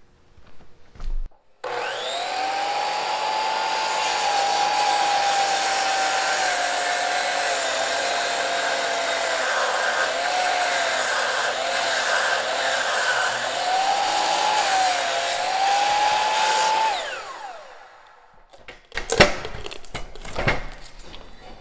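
DeWalt sliding miter saw (chop saw) with an old blade cutting through a dry, dense black locust fence post: the motor starts about two seconds in and runs for about fifteen seconds, its whine sagging and wavering as the blade bogs in the hardwood, and the blade does not quite get all the way through the post. The motor then spins down, and wooden knocks and clatter follow as the cut block is lifted off the saw.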